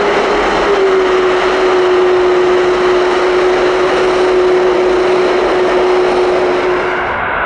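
Large jet aircraft engines running loud and close: a steady rushing noise with one droning tone that dips slightly about a second in. Near the end it cuts abruptly to a thinner jet engine sound with a higher whine.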